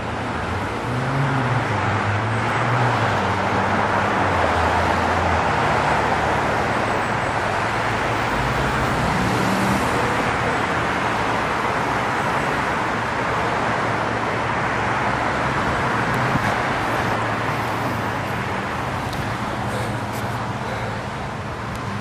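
Steady traffic noise: a motor vehicle's engine rumble with a rushing sound that swells in over the first couple of seconds and slowly eases off toward the end.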